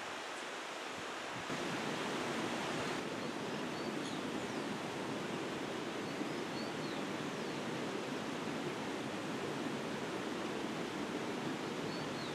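Steady rushing outdoor forest ambience, with faint, brief high bird chirps every few seconds.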